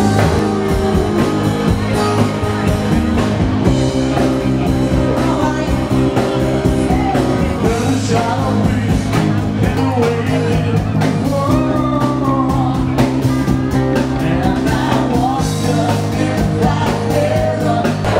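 Background music: a song with guitar, a steady beat and a voice singing.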